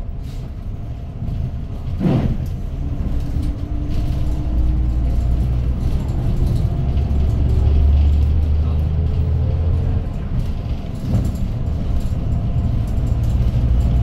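Hyundai GreenCity city bus's C6GA CNG engine pulling the bus up to speed, heard from inside the cabin, its pitch climbing steadily for several seconds. It falls away briefly near the ten-second mark, as at a shift of the five-speed manual gearbox, then runs on. A short burst of noise comes about two seconds in.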